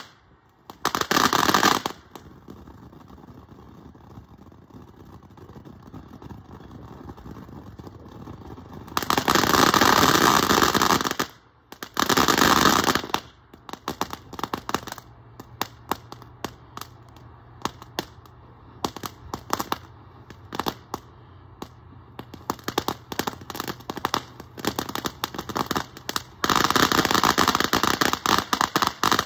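A ground fountain firework burns through its stages. Loud sprays of sparks come about a second in, again around the middle and near the end, with a quieter steady hiss in between and a long run of sharp crackling pops.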